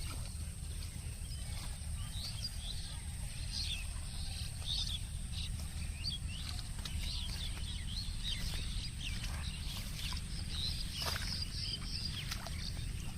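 Small birds chirping and twittering in short, high, irregular calls over a steady low rumble.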